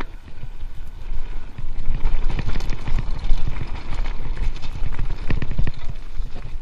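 Giant Stance mountain bike ridden over a rough, rocky dirt trail: tyres crunching over stones and ruts, with a dense run of irregular knocks and rattles from the chain and frame at every bump, over a heavy low rumble of wind on the camera's microphone.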